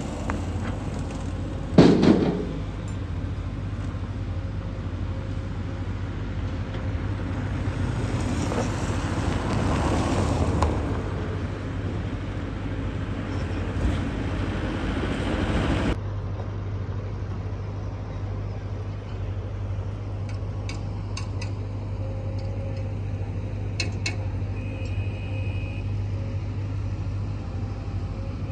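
Road traffic with a steady low engine hum. There is a loud bang about two seconds in, and a vehicle swells past around ten seconds in.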